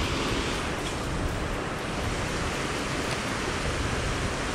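Water pouring over a concrete spillway weir: a steady rushing roar.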